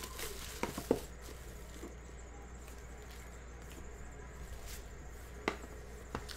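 Plastic shrink wrap crinkling and crackling as it is peeled off and crumpled from a cardboard trading-card box. There are several sharp crackles in the first second, then quieter handling, then two sharp ticks near the end.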